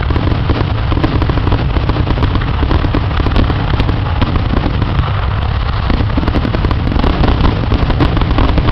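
Aerial fireworks going off in a rapid barrage: many bangs and crackles running together without a break.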